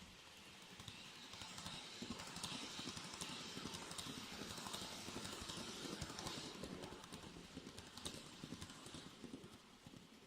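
N-gauge model train running along the track, its wheels clicking over the rail joints in an uneven run of light clicks over a low rolling hiss. It grows louder over the first two seconds and fades near the end.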